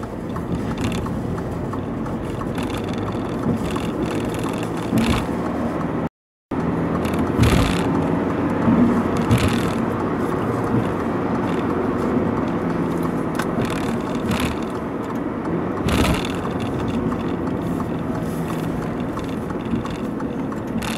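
Alfa Romeo Giulia Veloce's 2.2 turbodiesel four-cylinder and its tyres heard from inside the cabin while driving: a steady engine hum and road noise. There are a few short thumps about five, seven and sixteen seconds in, and the sound cuts out for a split second a little after six seconds.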